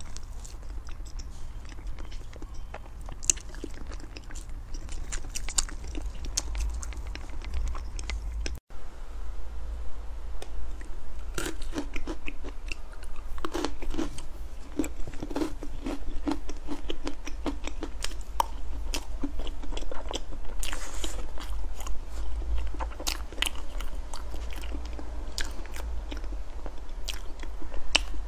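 Close-miked eating sounds: a person chewing and swallowing soft cream cake, with many small wet mouth clicks and smacks and the occasional spoon tap, over a steady low hum. A sudden brief dropout about a third of the way in.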